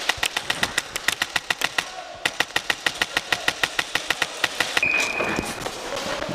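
Airsoft electric rifle (AEG) firing on full auto in two long bursts of evenly spaced shots, about eight or nine a second, with a short break about two seconds in.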